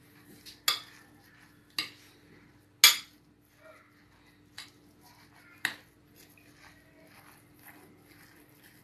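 Metal utensil clinking and scraping against a glass bowl while mashing cooked squash: five sharp clinks with soft scraping between them, the loudest about three seconds in.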